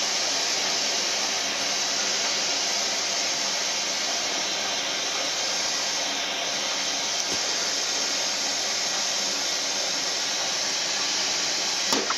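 Vintage Japanese kettle at the boil on a gas burner, giving a steady hiss of steam. There is one light click near the end.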